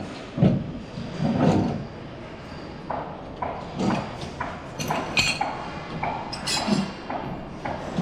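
Irregular knocks and thuds with a few short, sharp metallic clinks, like hard objects being handled and set down.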